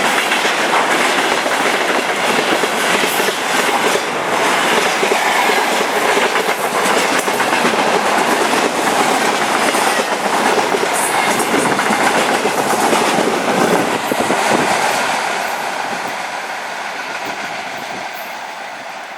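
Freight train rolling past, steel wheels clattering rhythmically over the rail joints in a steady loud rumble. About fifteen seconds in the sound begins to fade as the train draws away.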